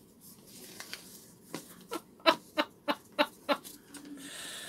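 A person laughing in a run of about seven short chuckles, with light paper rustling as a cut-paper snowflake is unfolded.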